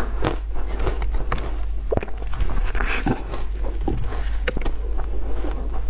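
Ice balls dipped in passion fruit sauce being bitten and chewed close to a clip-on microphone: a fast, irregular run of crisp cracks and crunches.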